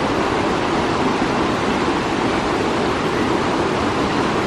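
Steady rush of water over the Tahquamenon River's Lower Falls, the river running high.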